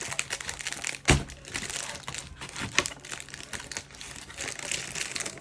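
Plastic blister packaging crinkling and crackling as it is cut and pulled apart by hand. There is a sharp louder knock about a second in.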